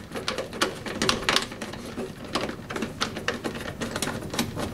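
Hand tools working a nut and bolt on a lawn mower deck while the belt cover's lower fastener is undone: a run of irregular light clicks and ticks, a few a second.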